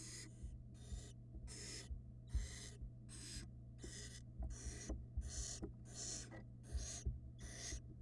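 Barn owl nestlings giving their rasping, hissing begging calls (the chicks' "snoring"), about one every two-thirds of a second. Knocks and scrapes come from the chicks shuffling against the wooden nest box, and a steady low electrical hum runs underneath.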